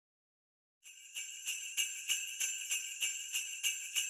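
Sleigh bells jingling, shaken in a steady rhythm of about three shakes a second, starting about a second in.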